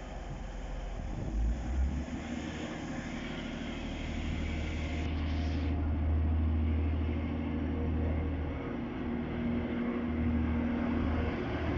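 Two coupled Class 185 diesel multiple units pulling out of a station: the underfloor diesel engines drone under power, with the low note building about a second and a half in and then holding steady as the train gathers speed.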